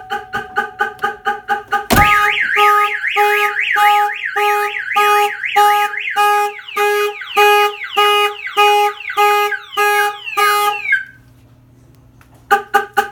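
Viper car alarm siren set off by opening the truck's door: quick pulsed tones, then after a click a loud siren cycling through a fast warble and pulsed tones. It stops about two seconds before the end, and a few short chirps follow.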